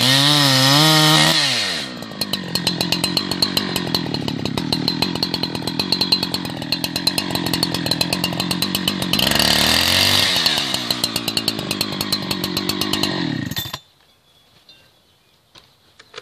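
Chainsaw cutting the felling notch into a blue gum trunk, its engine note wavering under load, then dropping to idle about two seconds in. It revs up briefly around the middle, settles back to idle, then cuts off suddenly near the end.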